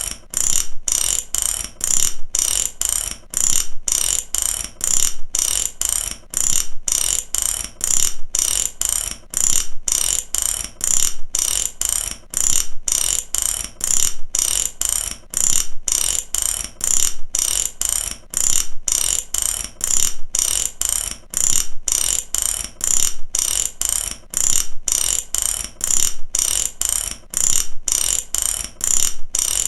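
Mechanic's ratchet wrench being worked, its pawl clicking over the teeth in a quick run of sharp metallic clicks on each stroke, about one stroke a second with a brief pause between.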